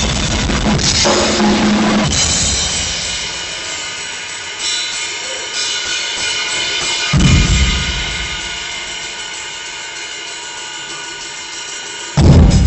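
Live drum kit played hard, recorded through a phone, then stopping on a cymbal that rings on and slowly fades. A single low drum hit comes about seven seconds in, and the full kit comes back in loudly near the end.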